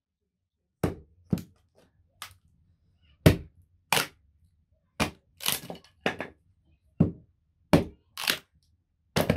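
A blade chopping into a piece of wood held upright, splitting it: about a dozen sharp cracks at uneven spacing, roughly one to two a second.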